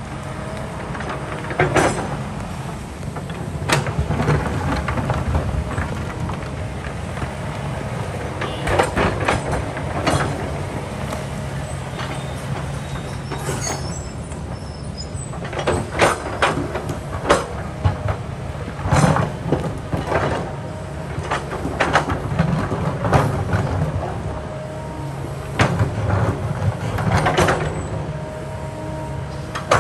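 Kobelco excavator's diesel engine running steadily under load, with repeated sharp clanks and scrapes of the steel bucket against rock as it digs and shifts boulders.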